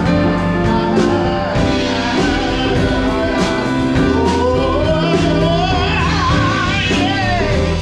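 Live band playing a song: drums keep a steady beat under sustained chords, and a singer's voice comes over them, clearest in the second half.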